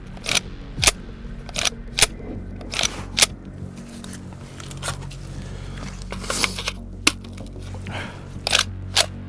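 A run of sharp metallic clicks and clacks, about a dozen and unevenly spaced, with a pause in the middle. This is the action of a mud-fouled IWI Galil ACE Gen 2 rifle being worked and checked by hand. Its bolt has been failing to seat fully yet still firing.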